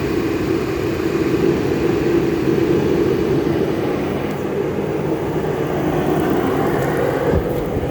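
Portable shop heater running with a steady, loud rushing of air and an even low hum.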